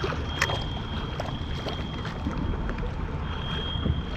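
Water sloshing and lapping against a kayak hull, with scattered small clicks and a thin, steady high-pitched whine that drops out for about a second midway.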